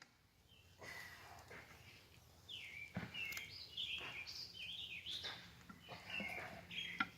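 Birds chirping in the background, with a faint knock about three seconds in and a sharper knock near the end from work on the split-rim wheel.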